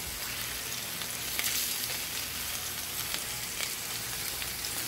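Pork chops searing in a cast-iron skillet: a steady sizzle with a few faint crackles.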